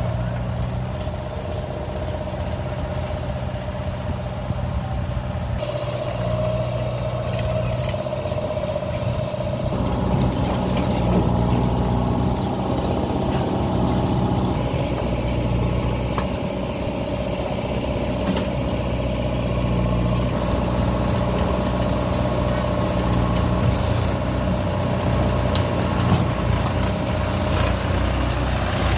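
Diesel engine of a JCB 3DX backhoe loader running steadily. Its sound changes a few times, about six and ten seconds in and again around twenty seconds.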